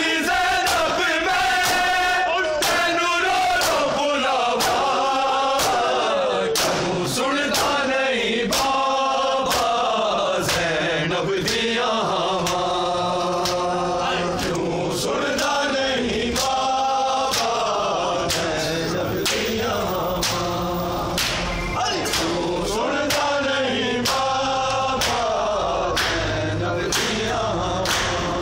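A group of men chanting a noha together in unison, with a steady beat of hand slaps on bare chests (matam) keeping time to the chant.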